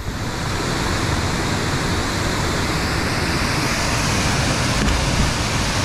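Waterfall rushing steadily into a gorge pool, a loud, even roar of falling water.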